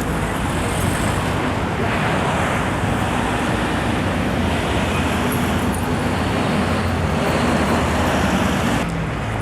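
Steady road traffic noise, with a continuous low engine hum. The sound changes abruptly near the end.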